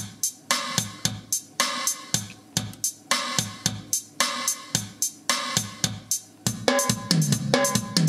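Roland Octapad SPD-30 playing its built-in ballad drum-kit loop at a slow, steady 110 beats per minute. Near the end it switches to a faster, busier loop.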